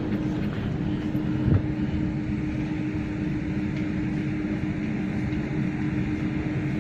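Taiwan Railways EMU3000 electric train standing at the platform, its onboard equipment giving a steady hum with one held low note. There is a single short knock about a second and a half in.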